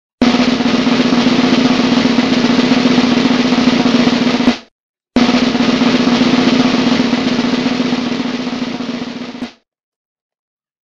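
Snare drum roll sound effect played twice: two steady rolls of about four seconds each, with a short break between them, each starting and stopping abruptly.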